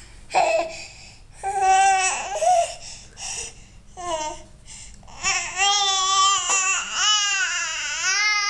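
A baby making silly high-pitched vocal noises: a few short squeals and babbles, then from about five seconds in one long wavering call that rises and falls in pitch.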